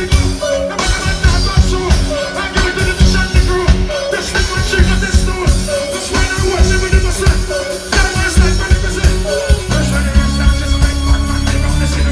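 Live reggae music with a strong beat and deep bass, a short riff repeating about once a second; the bass grows heavier near the end.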